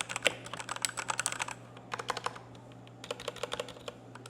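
Typing on a Redragon Ziggs Pro mechanical keyboard with red linear switches: quick runs of keystroke clacks, broken by short pauses, about two seconds in and again near the end.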